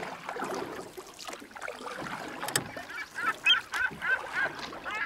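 Birds calling over a steady noisy background, with a run of repeated honking calls, about three a second, starting about three seconds in.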